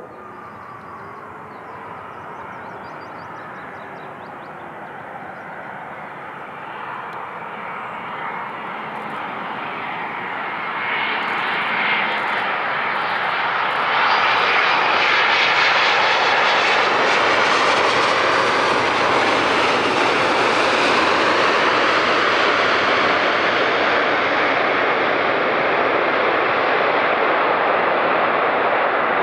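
Boeing 787 Dreamliner's jet engines on a landing. The sound grows steadily louder as the airliner comes in on final approach, jumps up about halfway through, then holds loud and steady as it touches down and rolls out.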